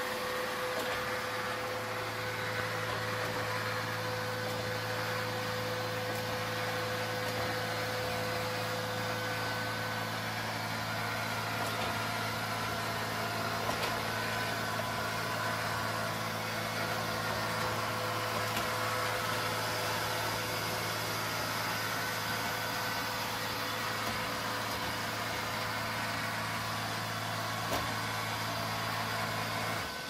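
Neato Botvac D7 robot vacuum running steadily on a hard floor: a constant motor hum with a held tone above it over a rushing noise, with a few faint clicks. The low hum drops away at the very end.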